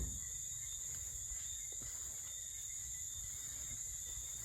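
Steady high-pitched chorus of insects such as crickets, with a few faint ticks.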